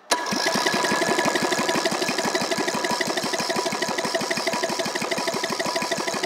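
Briggs & Stratton 14.5 HP overhead-valve single-cylinder engine being cranked over by its electric starter, with a compression gauge in the spark-plug hole and the engine not firing. It starts suddenly and runs as a steady, rapid, even rhythm with a whine over it. The gauge reads a good 123 psi cold, the sign of a strong, healthy engine.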